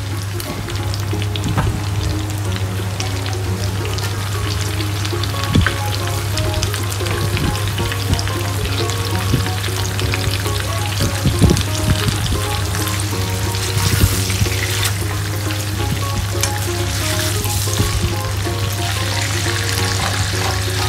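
Beef steaks sizzling and crackling in hot oil in a frying pan, with occasional sharp taps and clicks as the meat is handled.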